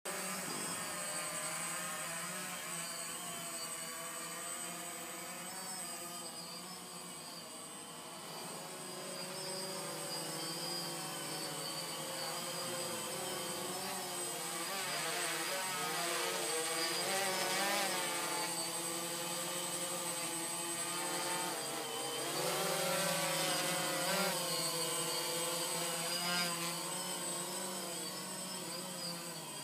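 DJI Phantom quadcopter's four propellers buzzing as it hovers and manoeuvres overhead, the pitch wavering up and down as the motors speed up and slow down, louder in stretches as it comes closer.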